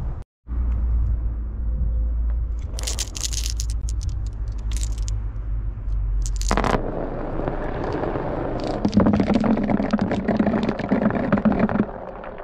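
Glass marbles clicking together a few times. Then, from about seven seconds in, a batch of marbles rolls down a track with a steady rumble and rapid clacks as they knock into one another.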